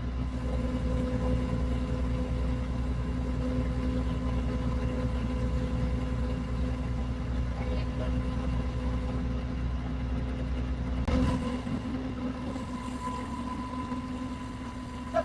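An engine running steadily with a low hum; the deepest part of the hum drops away after a click about eleven seconds in.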